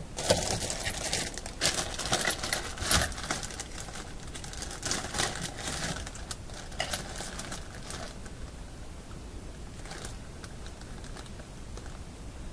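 A hand rummaging through small electronic parts, picking out a capacitor: dense rattling and clicking for the first several seconds, then a few scattered clicks.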